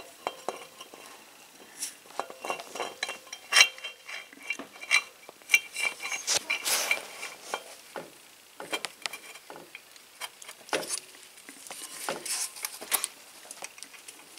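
Irregular light metallic clinks, rattles and scrapes of a timing chain and engine parts being handled as the chain is worked through the cylinder head of a 150cc go-kart engine and lined up with its chain guides. Some clinks ring briefly, and the loudest come a few seconds in.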